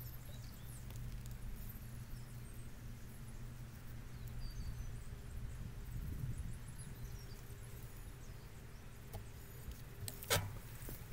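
Knobbly bicycle tyres rolling over a fine gravel path: a steady low rumble with scattered light ticks and rattles, and one sharper knock about ten seconds in.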